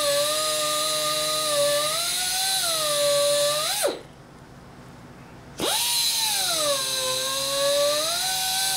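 Flexible-shaft rotary carving tool cutting a groove into a wooden carving block: a high motor whine whose pitch sags and wavers as the cylindrical bit bites into the wood. It stops a little under four seconds in, then spins up again after about a second and a half.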